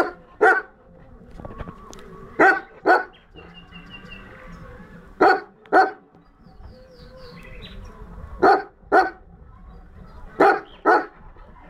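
Tornjak shepherd dog barking in pairs of two quick barks, a pair every two and a half to three seconds, five pairs in all.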